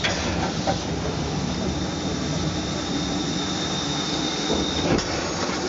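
Narrow-gauge steam train in motion: a steady rumble and rattle of the locomotive and wheels over the track. A thin high squeal holds for about three seconds in the middle, and there is a sharp knock near the end.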